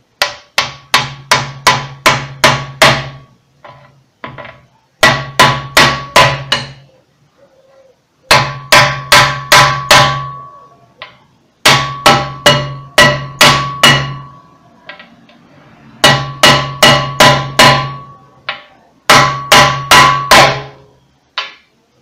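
Hammer blows on a wooden block, driving a new ball bearing into the sheet-metal bearing seat of a Koblenz washing machine. The blows come in six bursts of about five to seven strikes, roughly two a second. Each burst has a metallic ring from the machine's sheet metal.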